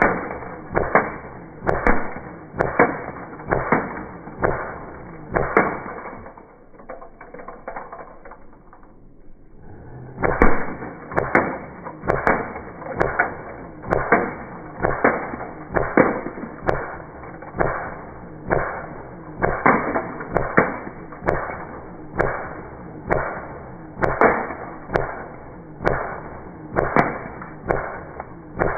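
Airsoft gun firing repeatedly at a beer can: sharp shots with a short ring after each, about one a second, with a pause of a few seconds about a quarter of the way in.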